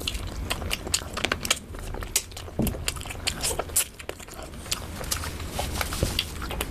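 Close-up eating sounds from a mouthful of rice and curry: wet chewing with many quick, sharp lip-smacking clicks and crackles.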